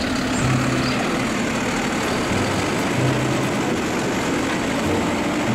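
Automated side-loader garbage truck's diesel engine running steadily while its hydraulic arm lifts a wheeled trash cart to empty it.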